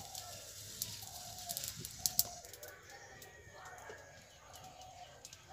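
Faint clucking of chickens, with a couple of sharp clicks about two seconds in.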